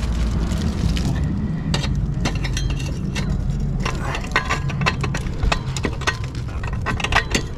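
Stainless steel exhaust collector pipe clinking and tapping against metal parts of the motorcycle as it is manoeuvred into place: a run of light metallic clicks and knocks, more frequent from about halfway in, over a steady low hum.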